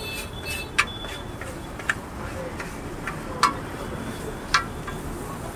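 Metal spatula striking a large flat tawa griddle while chopping and spreading a curry on it: four sharp clacks about a second apart, over a steady background noise.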